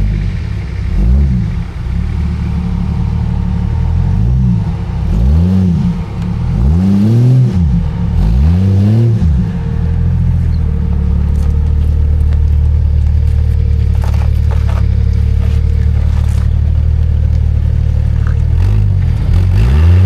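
Old Jeep Cherokee engine revved hard, rising and falling about five times in quick succession, then held at steady high revs for several seconds before climbing again near the end.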